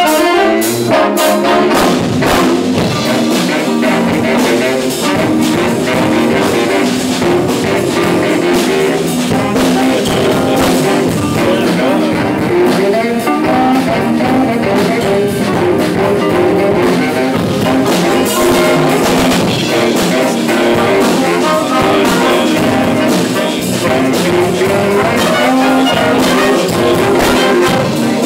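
School jazz band playing a funky jazz tune live: horns over a drum kit, continuous and loud.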